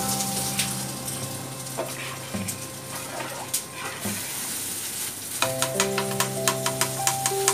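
Hot oil with fried garlic and dried red chillies sizzling where it has been poured onto thick chicken halim as a baghar (tempering), then a ladle stirring it through the pot. There is soft background music with held notes, and a quick run of clicks in the second half.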